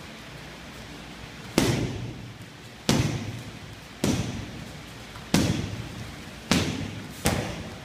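Strikes landing on Thai pads: six sharp smacks roughly a second apart, the last two closer together, each followed by a short echo of the room.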